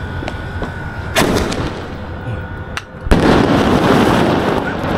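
A 'Fun Maza' sky-shot firework going off, with a sharp bang about a second in and another crack just before three seconds. A loud, steady rushing noise follows from about three seconds on as the shot bursts into gold stars.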